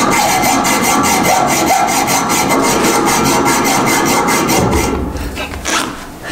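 Hand hacksaw cutting through an old radiator pipe with fast, even back-and-forth strokes, using a dull blade with missing teeth. The sawing stops about five seconds in.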